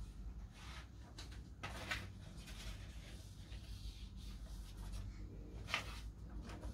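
Sheets of paper rustling and crackling faintly a few times as they are handled and flipped over, with the clearest crackles just under two seconds in and just before six seconds.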